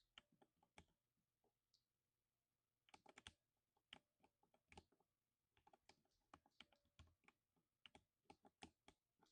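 Typing on a lubed 60% mechanical keyboard: irregular runs of keystrokes, each a muted thock, with a pause of nearly two seconds about a second in.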